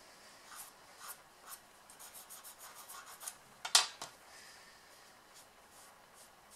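Soft white pastel stick scratching across textured pastel paper in a run of short, quick strokes, several a second. About three and a half seconds in comes one sharper, louder scrape, and fainter strokes follow after it.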